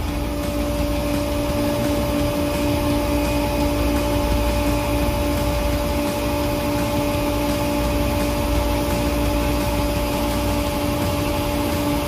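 Trane RTAA air-cooled chiller's screw compressor running with a steady hum and a constant tone. It is running at full load, with its unloader slide valve stuck so that it does not unload at set point.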